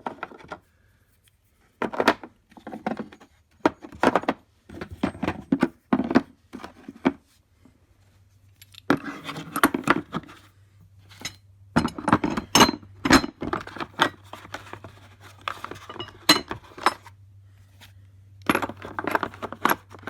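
Steel puller and slide-hammer parts clinking and clattering as they are handled and fitted back into their carrying case, in an irregular string of knocks and jangles. A faint low hum joins about eight seconds in.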